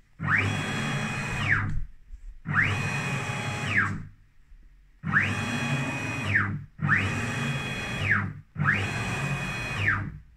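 Stepper motors driving the CNC router's 1605 ball screws through five rapid jogs at 5,000 mm/min, each about a second and a half long. On each move the whine rises in pitch as the axis accelerates, holds steady, then falls as it slows to a stop.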